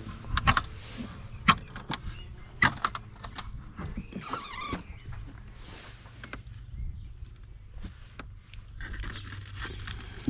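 Plastic fish bin lid lifted and the catch inside handled: sharp knocks and clicks, most of them in the first three seconds, over a steady low hum. A brief squeaky, wavering sound comes about four and a half seconds in.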